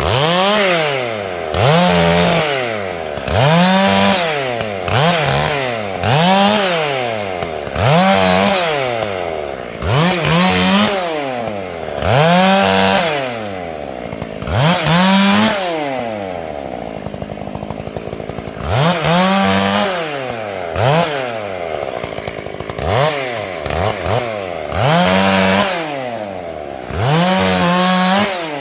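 Stihl MS 461 two-stroke chainsaw revving up and dropping back over and over, about once every two seconds, with a steadier, lower stretch about two thirds of the way through.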